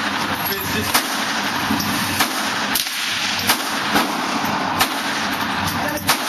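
Savage 64 FXP semi-automatic .22 LR rifle firing about six single shots, irregularly spaced one to one and a half seconds apart, over a steady background hiss.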